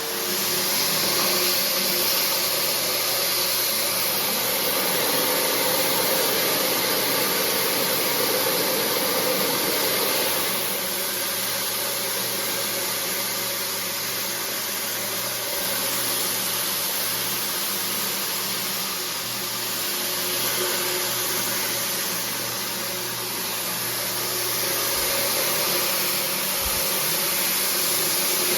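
Floor-cleaning machine running steadily with a loud, even rushing noise and a low hum, starting right at the beginning.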